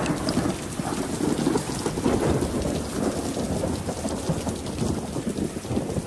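Heavy rain pouring down in a thunderstorm, with a long rolling rumble of thunder.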